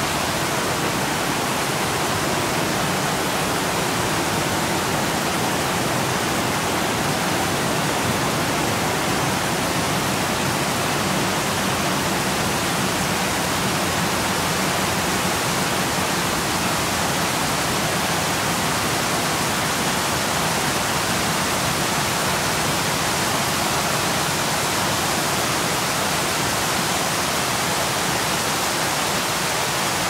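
A huge waterfall's loud, steady rush of falling water.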